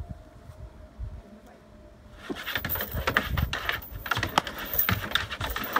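A dog lunging at and biting a padded bite sleeve on a wooden table, starting about two seconds in: a sudden, dense scuffle of thuds, clawing and knocks that runs on to the end.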